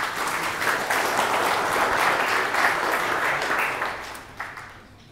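Audience applauding, loudest in the middle and dying away about four seconds in.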